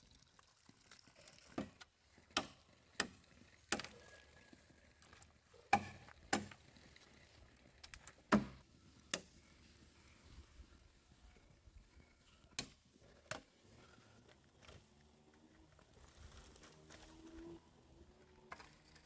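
Machete striking green bamboo poles: about a dozen sharp chopping blows, unevenly spaced, grouped in pairs in the first half and thinning out in the last few seconds.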